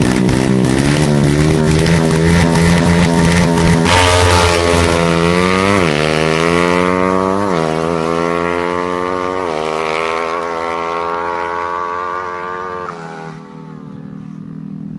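Engine running hard: its pitch climbs slowly and falls back sharply about four times, then it fades away about 13 seconds in.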